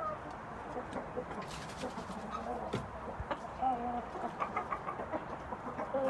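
Young rooster clucking: a few short, low calls spaced out over several seconds, with some faint clicks.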